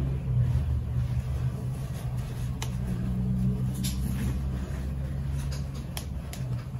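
A low, steady engine hum with a few sharp clicks about two and a half, four and six seconds in.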